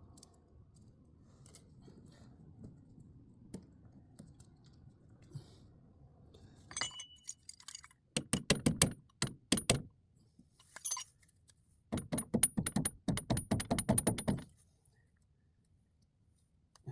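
Metal tools and parts clinking and knocking: a faint low rumble, then two quick runs of sharp metallic clicks with a high ringing tone, about eight seconds and twelve seconds in.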